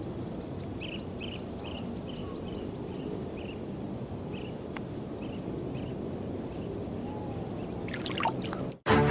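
Outdoor ambience: a steady low rumble, with about a dozen short high chirps repeating in the first half. Just before the end it cuts to music.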